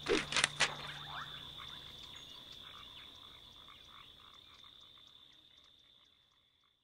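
A few quick knocks at the start, then a night chorus of frogs and chirping insects with one steady high trill, fading out slowly.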